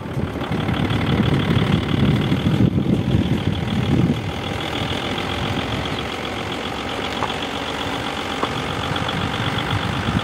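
A motor vehicle's engine running steadily, a little louder in the first few seconds.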